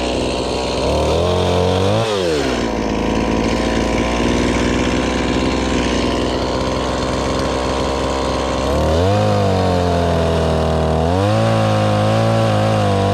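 Chainsaw running and being throttled: the engine revs up about two seconds in and drops back, runs steady, then revs up twice more near the end before dropping back, as a small limb is trimmed.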